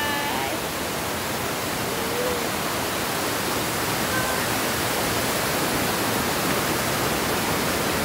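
Rushing stream cascading over rocks, a steady, even roar of water.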